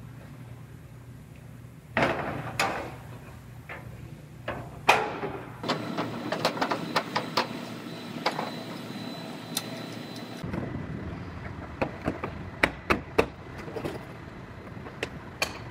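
Irregular metallic clunks, clicks and knocks as sheet-metal body panels on a Honda Odyssey minivan are handled and test-fitted, over a steady low hum. A thin high tone sounds for several seconds in the middle.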